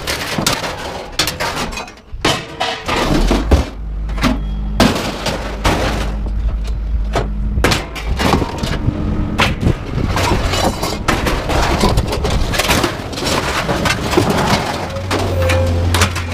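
Scrap metal clanging and crashing as pieces are pulled and tossed from a truck onto a pile: many irregular sharp impacts. A low rumble runs under it for a few seconds near the middle.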